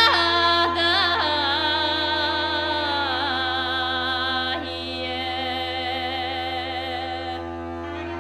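Background music: a held melodic line that wavers in pitch over a steady low drone, slowly easing in level.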